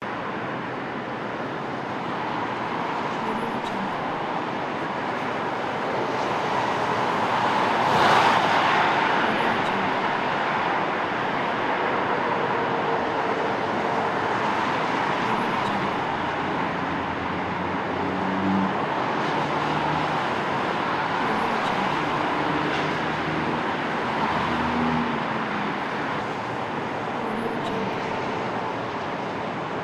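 City street traffic ambience: a steady wash of cars and other road vehicles, swelling louder about eight seconds in, with some low engine hum later on.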